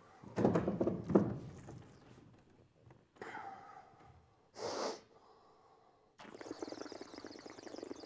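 A man's breathy gasps and sharp exhalations after a swig from a bottle: a loud outburst about half a second in, two shorter breaths around three and five seconds in (the second a hissing blast), then a rough, rasping breath from about six seconds on.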